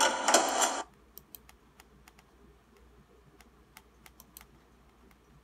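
Film audio playing from the computer's speakers stops abruptly about a second in, followed by scattered clicks of a computer keyboard being typed on.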